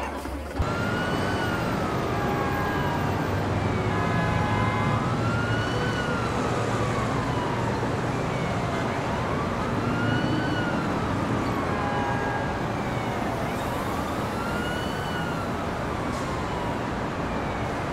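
Emergency-vehicle siren wailing slowly, rising and falling in pitch about every four to five seconds over a steady low background rumble.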